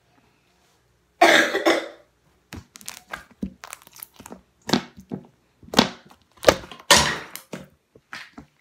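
Slime being kneaded and stretched by hand: irregular sticky squelches and sharp little pops as air pockets burst, with a louder, longer burst a little over a second in.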